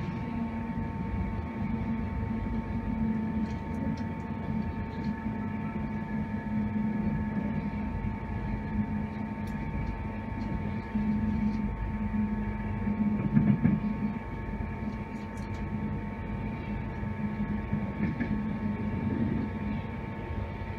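Running noise inside a coach of an electric Class 91-hauled express train on the move: a steady low rumble from the wheels and track under a constant electrical hum. A few light clicks and rattles come through, and there is a brief louder knock about thirteen seconds in.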